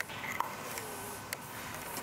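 Vinyl wrap film being handled and pressed by hand onto the plastic chrome trim of a car grille: light rustling with a few scattered soft clicks.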